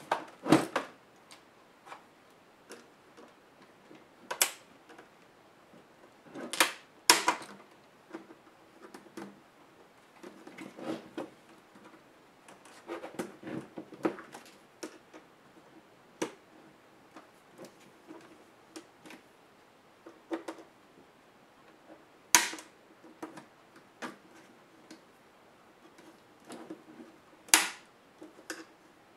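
Hands and small tools working on the plastic case of a Samsung NP305E7A laptop: scattered clicks, taps and small knocks of plastic and metal, with a few louder knocks as the laptop is shifted and pried at.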